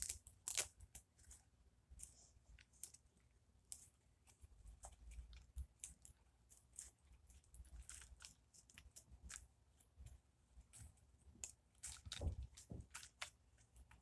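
Faint rustling of cloth doll clothes and scattered soft clicks as a Barbie doll is handled and undressed close to the microphone.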